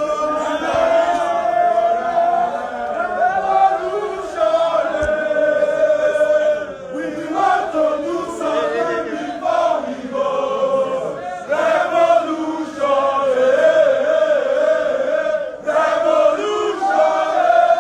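A crowd of supporters singing a protest chant together in unison, loud and continuous.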